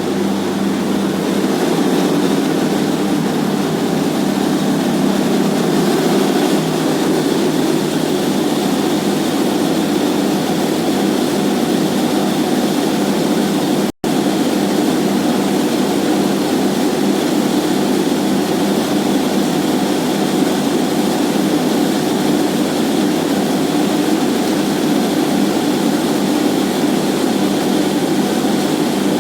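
Borewell drilling rig and its air compressor running steadily under heavy load, with a brief dropout about halfway through.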